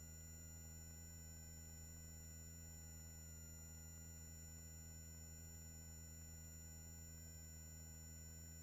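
Near silence on the helicopter's intercom audio feed: only a faint, steady low hum with a few thin, unchanging high-pitched whine tones.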